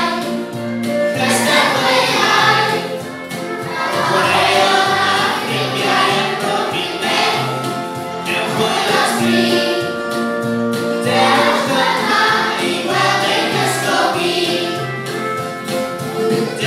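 A large group of primary school children singing the school anthem together, over an instrumental accompaniment with steady held bass notes.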